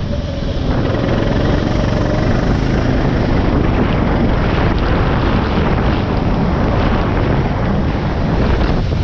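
Go-kart engine running at speed, heard from an onboard camera as a loud, steady roar mixed with rushing wind on the microphone.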